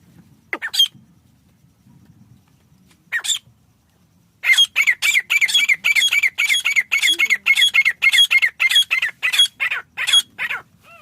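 Teetar (francolin) calling: two short calls, then from about four seconds in a fast run of about twenty loud, repeated notes, roughly three a second, each dropping slightly in pitch.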